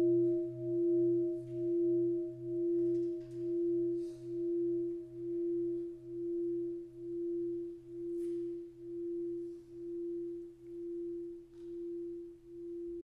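Struck singing bowl ringing out and slowly fading, its tone pulsing about once a second. It cuts off suddenly near the end.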